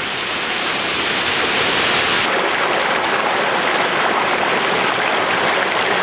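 Water of a small waterfall and rocky stream rushing steadily over rocks, a loud, dense hiss. A little over two seconds in, its tone changes abruptly.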